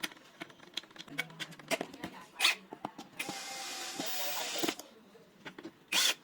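Cordless electric screwdriver driving a lock mounting screw: a steady motor run of about a second and a half midway and a short burst near the end, among light clicks and taps of handled metal parts.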